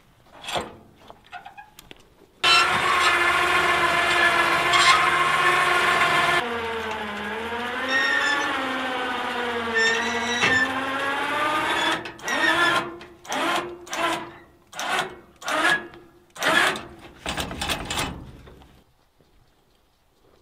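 A motor starts abruptly and runs steadily for about four seconds, then keeps running with its pitch wavering up and down. It is then run in a string of short bursts, under a second apart, before it stops.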